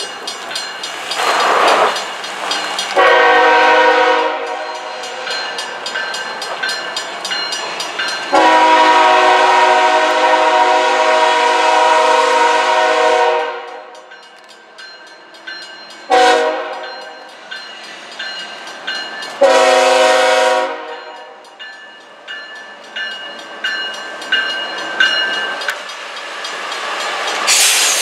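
CSX diesel locomotive's multi-chime horn sounding four blasts for a street grade crossing: a short blast, a long one of about five seconds, a very brief toot, then another short blast. Between the blasts the train's running is heard, growing loud near the end as the locomotives pass close by.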